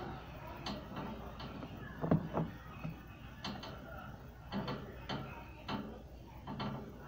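Faint, irregular clicks and light taps, about a dozen spread unevenly through, over a low steady room hum.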